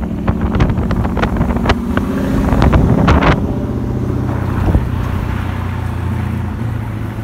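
Ford Mustang Boss 302's 5.0-litre V8 exhaust rumbling as the car pulls away and drives off, with sharp clicks over the first three seconds. After about three seconds the note settles lower and steadier and slowly fades as the car moves off.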